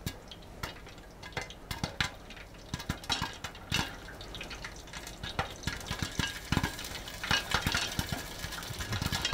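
Popcorn kernels popping in hot bacon grease inside a lidded cast iron Dutch oven, with sharp irregular pops over a faint sizzle. The pops come more often in the second half as the popping picks up speed.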